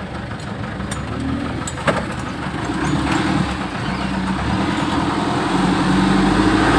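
Six-wheeler mini dump truck's diesel engine running as the truck drives in gear, growing louder over the last few seconds as it pulls harder. One short click about two seconds in.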